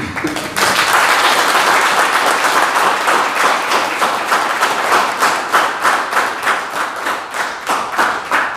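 A small audience applauding, a dense patter of hand claps that thins into separate claps near the end.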